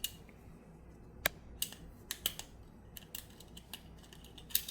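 Light metallic clicks and clinks, irregularly spaced, from a steel pistol magazine spring being pushed and compressed into a thin steel single-stack magazine body; the loudest clicks come about a second in and near the end.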